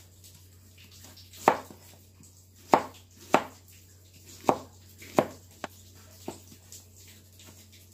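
Kitchen knife chopping vegetables on a cutting board: about eight single chops at uneven intervals, the last three fainter.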